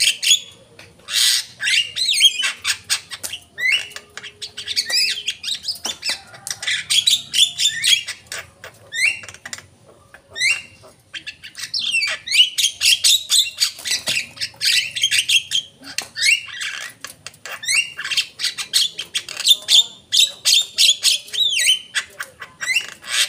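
Javan myna singing: rapid, varied runs of harsh chattering notes, clicks and short whistles, each lasting a couple of seconds, with short pauses between them.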